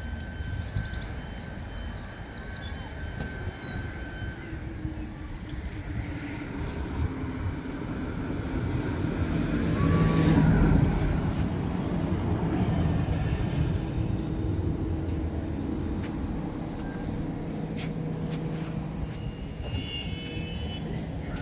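A London tram arrives at the platform. Its rolling noise and motor hum build up and are loudest about halfway through as it draws alongside, then ease into a steady hum as it slows and stands. Birds chirp in the first few seconds, and a brief high beeping comes near the end.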